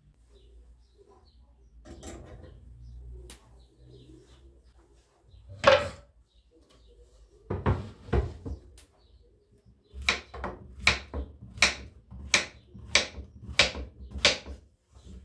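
Sharp household knocks and clacks of objects being handled. A loud single clack comes about halfway through, then near the end a run of about eight even clacks, roughly one and a half a second.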